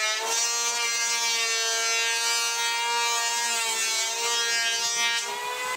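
Small handheld electric power tool, guided along the edge of a plywood sheet, running with a steady high-pitched motor whine. Its pitch sags slightly now and then as it bears into the wood, and it stops abruptly at the end.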